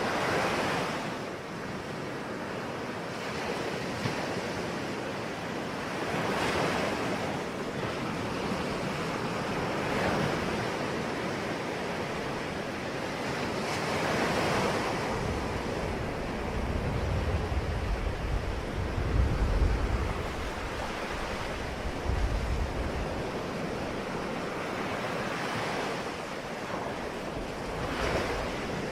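Sea waves breaking and washing in, the surf swelling and falling back every few seconds. A low rumble comes in for several seconds past the middle.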